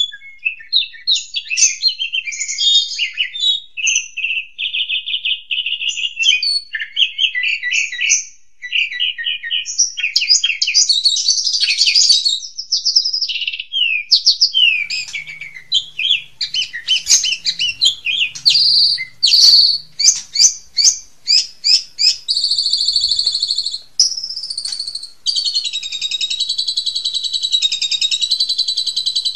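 A songbird sings a loud, varied song made to train caged songbirds: quick chattering phrases, trills and sharp repeated notes. About 25 seconds in it settles into one long, unbroken warbling roll.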